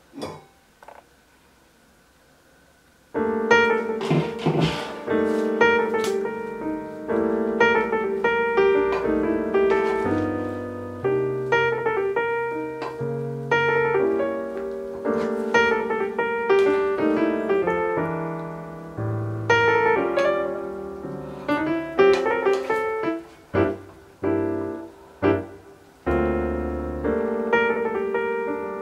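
Solo piano background music, beginning about three seconds in after a quiet opening broken by two light clicks.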